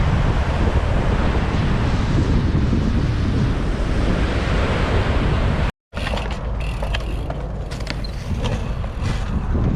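Wind buffeting the microphone over ocean surf. About six seconds in it cuts off abruptly, and a quieter stretch follows with scattered clicks and knocks.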